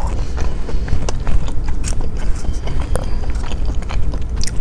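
A bite into avocado toast on whole-grain bread, then chewing close to a clip-on microphone: many small crisp clicks and crunches.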